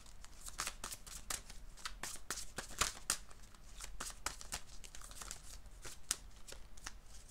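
An oversized oracle card deck being shuffled by hand: an irregular run of crisp card clicks and slides, several a second.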